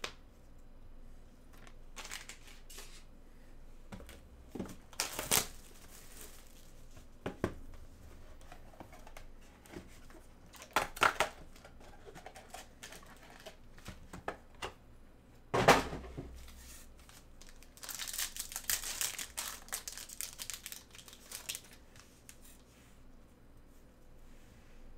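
Plastic wrapping and foil trading-card packs crinkling and tearing as a Panini Contenders basketball hobby box is opened and its packs ripped, in short scattered bursts. A single heavier thump comes a little past halfway, followed by a longer, denser stretch of crinkling.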